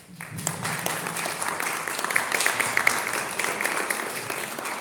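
Audience applauding, many hands clapping together, the clapping easing off a little near the end.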